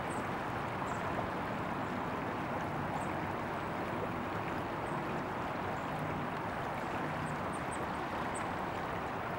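Shallow creek running over gravel, a steady rush of flowing water, with a few faint short high chirps now and then.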